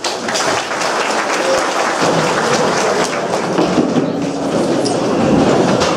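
A roomful of people sitting back down at wooden lecture-hall benches and desks: a dense clatter of shuffling, knocks and creaks.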